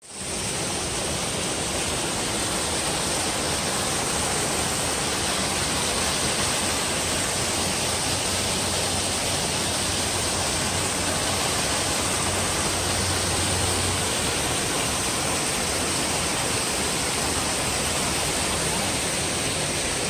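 Waterfall with a steady, unbroken rush of falling water.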